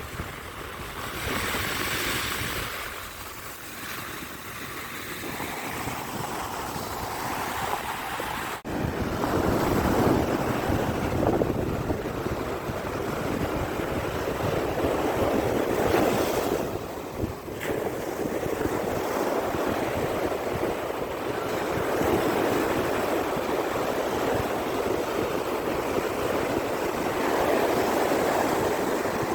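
Sea waves breaking on a beach, the surf swelling and washing in and out, with wind on the microphone. A brief break comes about nine seconds in, after which the surf is louder.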